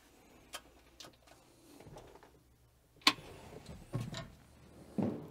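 A few faint, irregular clicks and knocks, the sharpest about three seconds in.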